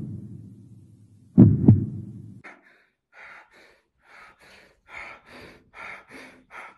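Heartbeat sound effect: a deep double thump, lub-dub, about one and a half seconds in, with a low rumble fading after it. Then a run of short, soft, hissy noises follows, about three a second.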